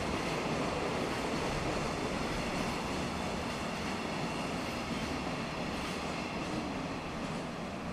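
Freight train hauled by an EF200 electric locomotive rolling past at speed while accelerating: a steady rumble and rattle of wheels on the rails, easing off slightly near the end.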